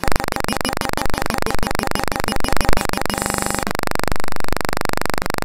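Loud, steady electrical buzz in the microphone or sound-system signal, a rapid even rattle spread across the whole range of pitches, with a short change in tone a little past halfway.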